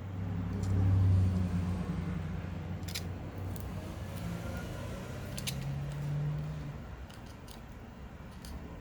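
A low droning rumble that swells to its loudest about a second in and fades out after about seven seconds, with a couple of sharp scissor snips cutting adhesive tape, about three and five and a half seconds in.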